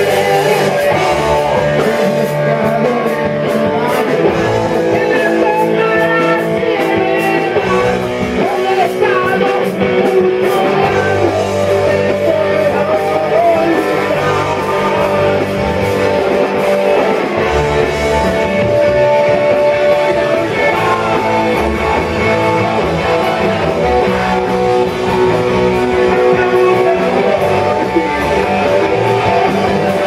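Rock music: a band playing with electric guitar and a singing voice.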